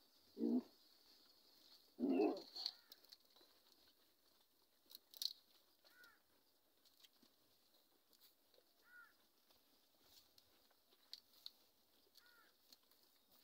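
Bari goats bleating twice near the start, the second call longer. After that a bird gives a short falling chirp about every three seconds over a steady high hiss.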